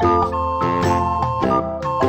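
Background music with a steady beat and a melody of held notes.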